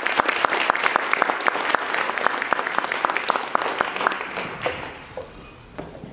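Audience applauding. The clapping is dense at first, then thins out and dies away about five seconds in.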